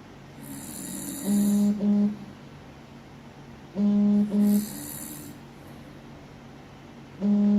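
Deliberate snoring over the steady hum of an air conditioner. The prototype snoring detector sounds its alert three times, a loud double beep roughly every three seconds.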